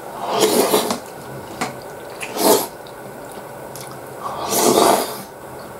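A person slurping demi-glace beef stew off a spoon: three loud slurps, the first and last about a second long, a short one between them.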